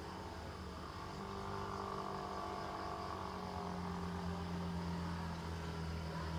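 A steady low mechanical drone, like a running motor, holding one pitch with a fainter higher tone over it.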